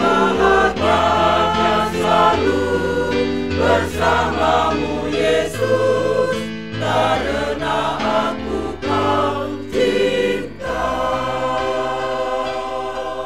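Mixed men's and women's church choir singing a hymn in sustained, slow-moving chords. About two-thirds of the way through, they settle on one long held final chord, which fades out near the end.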